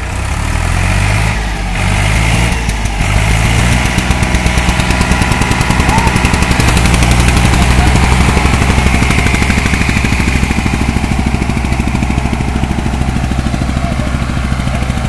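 Diesel tractor engines running hard under load as an Eicher tractor tows a Powertrac tractor and its loaded sugarcane trolley out of soft ground. The engine note shifts up and down in the first few seconds, then holds steady and loud.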